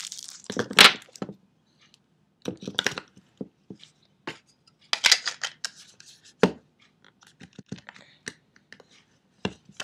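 Batteries being pressed into the battery compartment of a handheld GPS unit, with the plastic case handled: irregular clicks, knocks and rustles, the sharpest about a second in.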